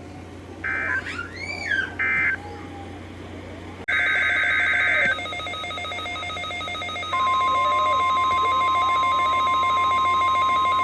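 NOAA Weather Radio digital alert signals: two short, shrill data bursts about a second and a half apart (the SAME end-of-message code), then, after an abrupt cut about four seconds in, a longer burst of the same kind of data signal, followed about seven seconds in by the steady single-pitch 1050 Hz weather radio warning alarm tone.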